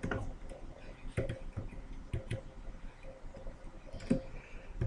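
Computer keyboard keys pressed a few at a time: scattered single clicks with pauses between them.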